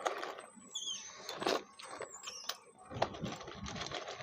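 Scattered light clicks, taps and rustles of small electronic parts and tools being handled on a workbench, with a few brief high squeaks.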